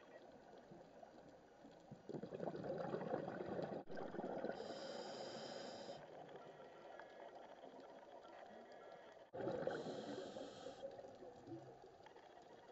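Scuba diver breathing underwater through a regulator: two breaths, about two seconds in and again near ten seconds, each a gurgling rush of bubbles with a hiss from the regulator, over a low steady underwater hiss.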